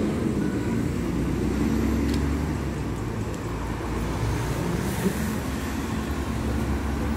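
Busy street traffic: cars and double-decker buses running past in a steady low rumble, with a short knock about five seconds in.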